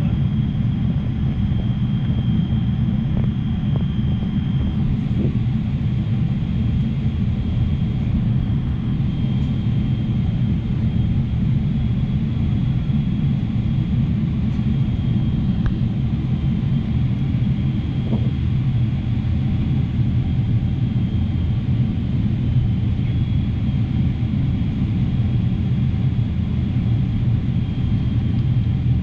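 Airliner cabin noise on the descent to landing: a steady low rumble of engines and airflow, heard from a window seat, with a faint high whine.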